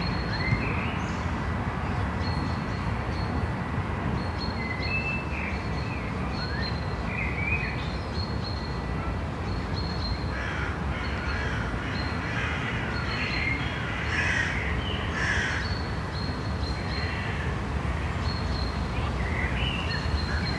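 Birds calling repeatedly in short, harsh calls, thickest about halfway through, over a steady low outdoor rumble.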